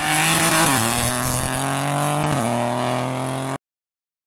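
Peugeot 208 rally car driving past at high revs, its engine note stepping down in pitch twice, about two-thirds of a second and two and a half seconds in. The sound cuts off suddenly near the end.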